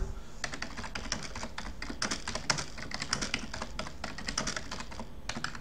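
Typing on a computer keyboard: a quick, irregular run of key clicks that stops near the end.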